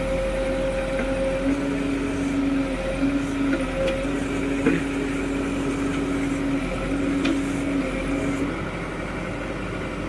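Tata Hitachi Shinrai backhoe loader's diesel engine running steadily, with a droning hydraulic tone that cuts in and out in stretches of a second or two as the arm and bucket hold and shift the machine's weight. A couple of light knocks, about halfway through and again a few seconds later.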